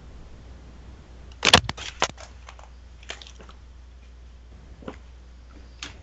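A quick cluster of sharp clicks and knocks about one and a half seconds in, then a few scattered single clicks, close to a voice-call microphone, over a steady low hum.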